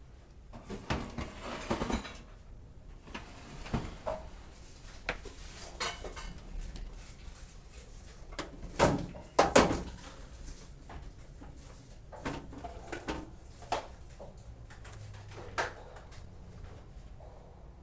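Irregular knocks, clicks and clatter of a kitchen range hood's housing and parts being handled and fitted back together, with two louder knocks about nine and a half seconds in.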